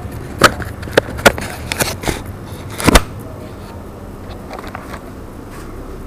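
Irregular sharp knocks and clicks, about six in the first three seconds with the loudest near the end of them, picked up right at a helmet-mounted action camera on a homemade velcro mount as the wearer moves about; after that only a low steady background.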